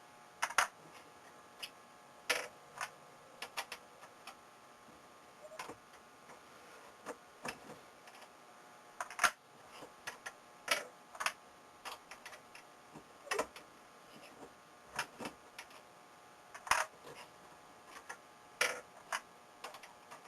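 Irregular metallic clicks and knocks of a reloading press being cycled with a Hornady cam-lock bullet puller, as the ram goes up and down and the puller's handle is cammed to grip and pull bullets from cartridges.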